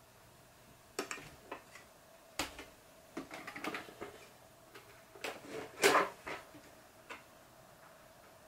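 Plastic clicks, knocks and clatter of a Toshiba VC-8300 vacuum cleaner's housing being handled as its dust compartment lid is unlatched and opened and the filter is lifted out. The sharp clicks come in an irregular series, the loudest about six seconds in.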